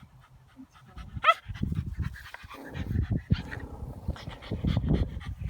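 Puppy panting, with one short high yelp about a second in and some low bumping sounds.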